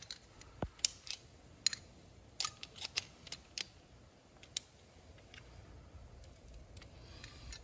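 Scattered light clicks and taps from handling a casement hinge, its screws and a cordless drill fitted with a screwdriver bit, about a dozen in the first four and a half seconds and then quieter.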